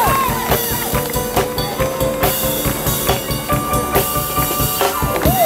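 Dance music with a steady drum beat and pitched melody lines, some bending in pitch, played loud for a breakdance routine.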